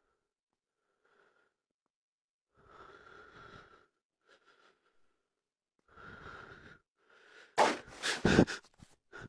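A person breathes hard in short, breathy bursts close to the microphone. About eight seconds in comes a cluster of loud knocks and rustles, the handheld camera being handled as it swings quickly.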